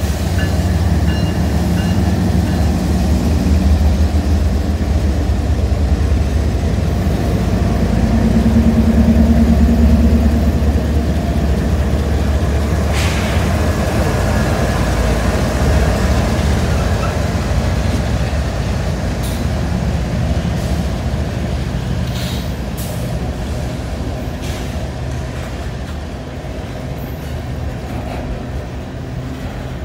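A consist of GE Evolution-series diesel-electric locomotives (ES44AH, ES40DC, ET44AH) passes close by with a loud, steady engine rumble. Empty coal hopper cars follow, rolling by with scattered clanks and wheel clicks, and the sound grows quieter toward the end.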